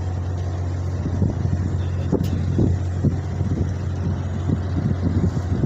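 A steady low engine drone, with irregular gusts of wind buffeting the microphone over it.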